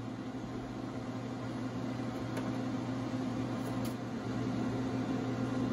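Pit Boss 7 Series vertical pellet smoker running, its fan giving a steady hum, with a couple of light clicks.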